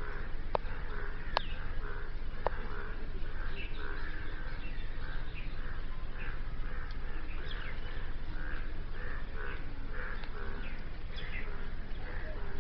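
A steady chorus of short animal calls repeating about twice a second, with a few sharp higher chirps in the first few seconds and a low steady rumble underneath.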